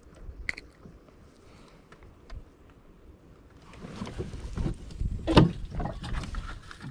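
Knocks and scuffs against a kayak's hull as the angler handles his catch and shifts in the seat, starting about four seconds in, with one loud knock about five and a half seconds in.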